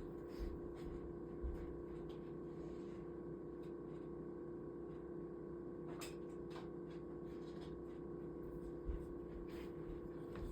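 Steady room hum with a few faint, brief clicks and knocks scattered through it, the clearest about six seconds in.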